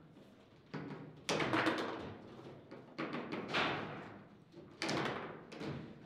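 Table football in play: the ball struck by the plastic figures and the rods knocking on the table, five or so sharp, loud hits at irregular spacing, each ringing briefly.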